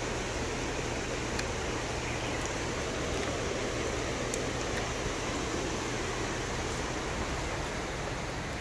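Steady rushing noise with a few faint, sharp high clicks.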